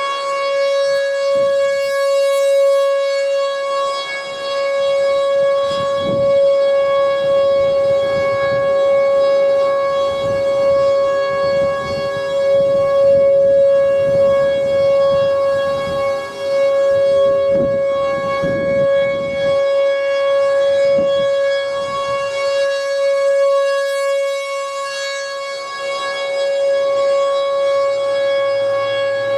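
T-128 outdoor warning siren sounding a steady tone during a routine test. It holds one unchanging pitch, rich in overtones.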